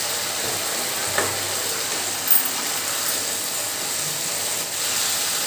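Cut green beans sizzling in oil in a nonstick kadai while a wooden spatula stirs them. The sizzle is a steady hiss, broken by a couple of sharper knocks, about one second in and just after two seconds.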